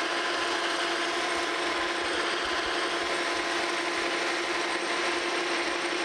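Monarch Model K metal lathe running steadily, with a steady hum, while its cutting tool, fed in by hand, takes a cut into the shoulder of a metal table-saw arbor.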